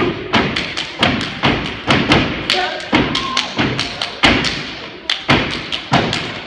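Two steppers' body percussion in a step routine: foot stomps, hand claps and body slaps in fast, sharp, rhythmic patterns, roughly three or four hits a second, echoing in the room.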